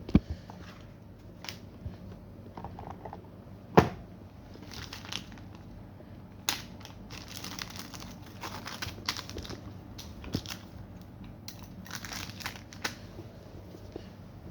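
Packaging being handled and crinkled: irregular crackling and rustling, with two sharp knocks, one just after the start and one about four seconds in.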